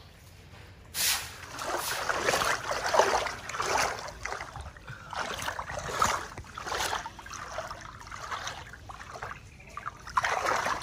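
Water splashing and sloshing in irregular bursts, about one a second, starting about a second in.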